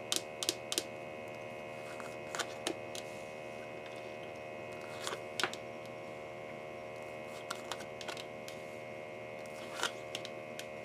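Tarot cards being drawn off a deck and laid down on the table: short sharp card clicks and snaps in pairs and small clusters, about a dozen in all, over a steady electrical hum.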